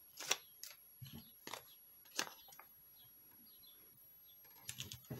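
Paper and adhesive tape handled by hand: a handful of short crinkles and taps as a sheet is pressed onto a card and smoothed down, with a small cluster near the end.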